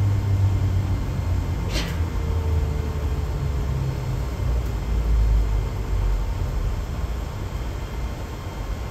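Bus cabin noise while driving: a low rumble that slowly grows quieter as the self-driving system brakes the bus from about 26 to 8 km/h. A single click comes about two seconds in, and a faint tone sinks slowly in pitch in the middle.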